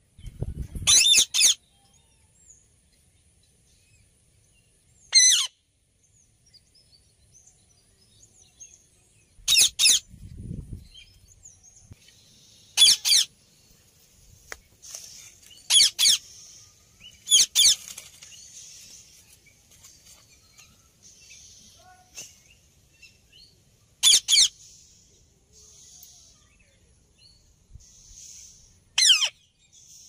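Alexandrine parakeets calling: about nine short, loud calls spread through the half minute, some in quick pairs, with fainter chatter between them. A brief low rumble comes near the start and again about ten seconds in.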